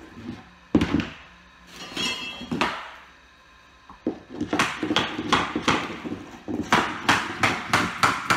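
Hammer tapping on a flooring pull bar to draw a vinyl plank tight at the wall, closing the joint. One loud knock about a second in, then from about halfway a steady run of about a dozen sharp taps, roughly three a second.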